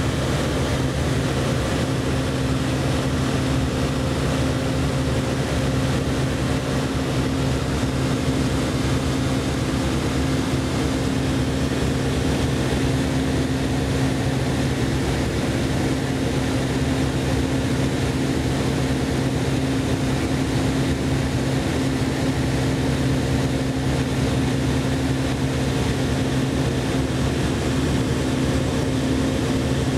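Ultralight aircraft's piston engine and propeller droning steadily, heard from inside the cockpit, with no change in pitch or level.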